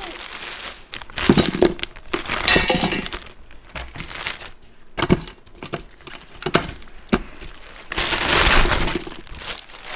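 Frozen bones clattering and clinking into the stainless steel inner pot of an Instant Pot as they are tipped out of zip-top freezer bags. There are several separate knocks, with plastic bags rustling in between.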